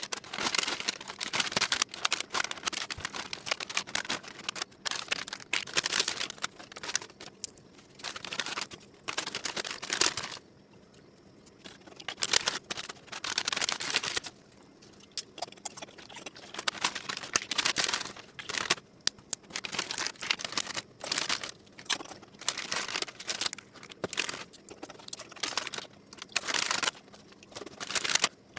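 Plastic snack packets crinkling and crackling as they are handled, with irregular runs of rustling and sharp crackles broken by short pauses.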